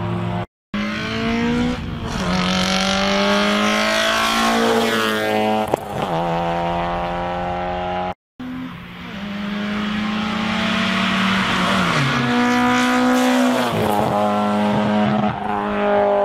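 Rally cars driven flat out on a road stage. Engines rev up and shift through the gears, pitch climbing and dropping back at each change as each car approaches and passes. The sound cuts out briefly twice, switching to the next car.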